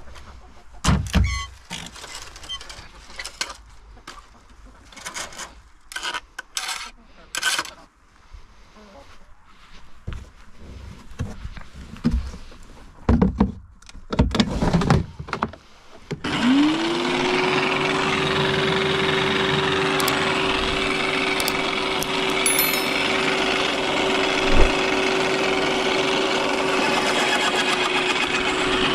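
Knocks and clatter of a plastic collection bin being handled and fitted to an electric garden shredder. About halfway through, the shredder's motor switches on, spins up with a quick rising hum and then runs at a steady pitch with nothing being fed into it.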